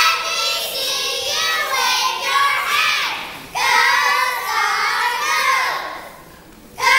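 Children's voices singing in high-pitched phrases, with a short break about three and a half seconds in and a quieter pause near the end.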